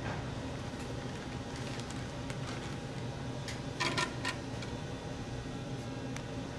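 Steady low mechanical hum, with a short cluster of sharp clicks about four seconds in.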